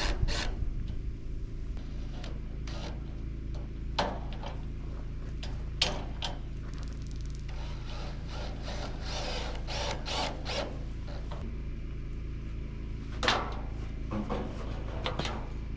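Aluminum pergola parts being handled and fitted: a few sharp knocks and a stretch of scraping, over a steady low hum.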